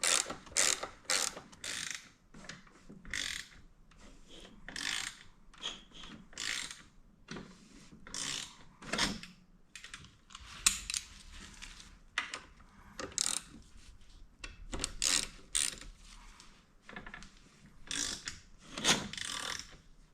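Hand ratchet wrench clicking through repeated short strokes, quick at first and then more spaced out, as cam gear bolts are run in and loosened on a V4 motorcycle engine.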